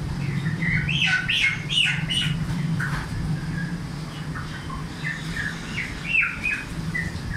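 Birds calling in two runs of short calls that rise and fall in pitch, about a second in and again around five to six seconds in, over a steady low hum.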